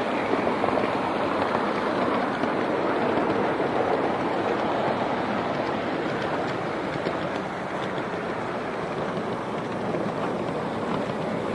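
Gauge 3 live-steam model locomotive in LMS maroon running on the garden railway track with a coach: a steady rushing, clattering noise that eases slightly near the end.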